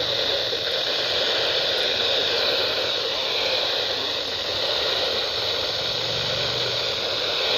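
Steady radio static hiss from a weather radio receiver, with no voice coming through the signal.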